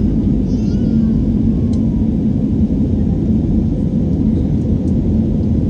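Steady low cabin noise of a jet airliner climbing shortly after takeoff: engine and airflow noise heard from a window seat.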